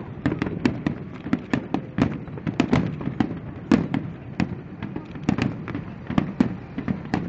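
Fireworks display going off in rapid succession: many sharp bangs and crackles, several a second at uneven intervals, each with a rumbling echo.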